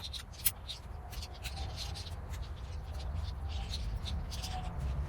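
Nylon tent fabric and poles rustling and scraping as a dome tent is handled during pitching, with many short irregular scratches over a steady low rumble.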